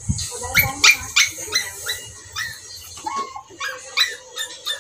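A dog yipping and whining in a quick run of short, high calls, about three a second, with a dull knock at the very start.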